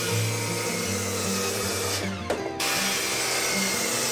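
Large Makita circular saw running and cutting through a hinoki cypress post, with a short break about two seconds in before the cut resumes.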